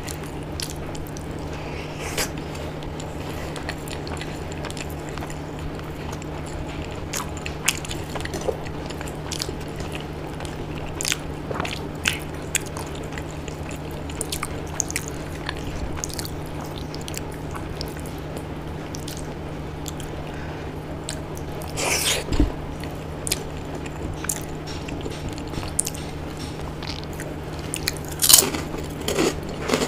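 Close-miked mouth sounds of a person eating khichdi and fried pakoras by hand: wet chewing with scattered bites and crunches, louder around two-thirds through and near the end. A steady low hum runs underneath.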